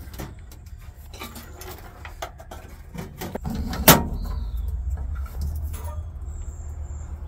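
Handling noise from wiring being fed and routed under a car's dashboard: scattered clicks and rustles, one sharp knock just before four seconds in, then a low steady rumble.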